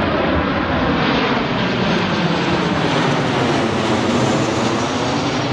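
A steady, loud rushing noise with a faint drone whose pitch slowly bends; the noise brightens around four seconds in.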